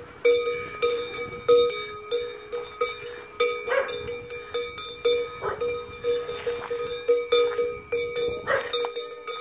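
Metal bells worn by devil-costumed figures clanging irregularly, two or three strikes a second, their ring carrying on between strikes.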